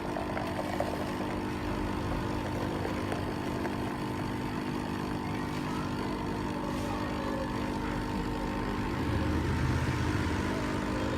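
Espresso machine pump running steadily while it brews a drink, a continuous hum that grows a little fuller near the end.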